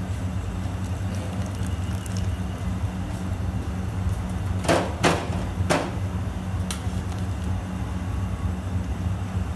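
A metal skimmer ladle knocks against the side of a large pot of boiled corn three or four times, a little before and after halfway through, over a steady low rumble.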